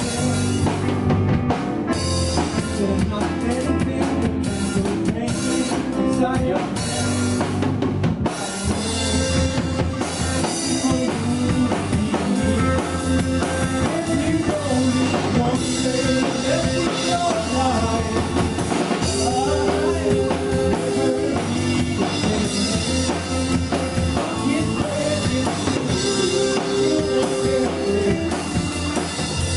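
Live rock band playing, with a drum kit, electric guitars, bass and keyboard; the drums are prominent, with dense hits in the first several seconds.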